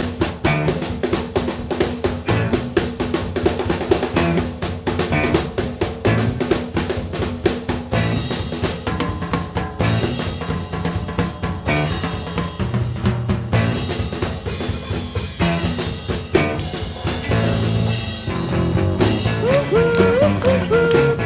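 Music with a busy drum-kit beat and a bass line; a lead melody with sliding notes comes in near the end.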